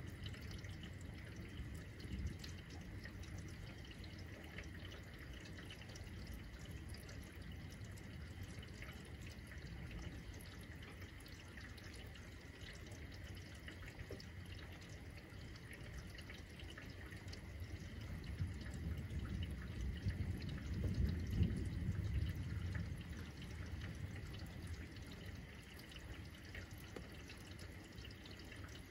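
Rain dripping and pattering steadily, with a low rumble of distant thunder swelling and fading about two-thirds of the way through.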